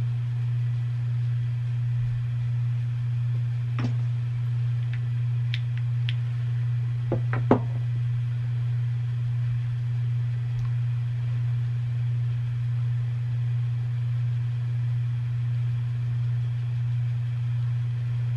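A steady low electrical hum, with a few faint clicks and a sharper knock about seven and a half seconds in.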